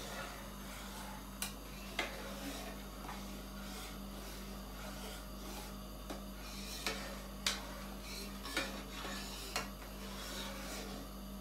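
Metal spoon scraping and clinking against the inside of an enamel pot while stirring milk curdling with yogurt into paneer, with about seven sharper knocks of the spoon on the pot.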